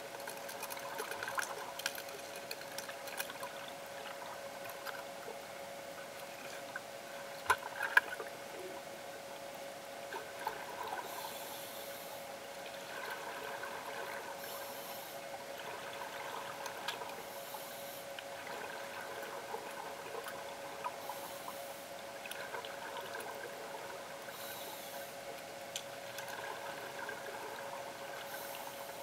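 Underwater in a pool: a steady hum runs throughout, with two sharp clicks about eight seconds in. From about eleven seconds in, scuba exhaust bubbles rush out in short bursts every three to four seconds.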